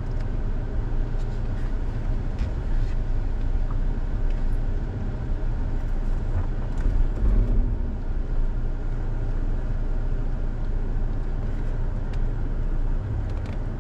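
Toyota Tacoma pickup's engine running at low revs as the truck crawls slowly over a dirt trail, heard from inside the cab as a steady low rumble that swells briefly about seven seconds in.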